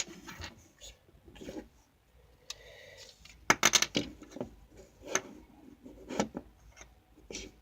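Plastic LEGO bricks and plates clicking and knocking as they are handled and pressed together, in scattered irregular clicks with a quick cluster about halfway through.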